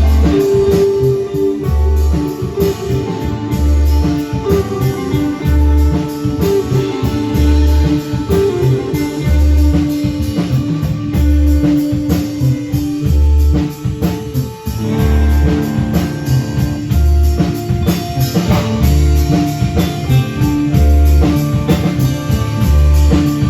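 Live band playing an instrumental passage: guitar over a drum kit, with a low note pulsing about every second and a half and a change of chord about two-thirds of the way through.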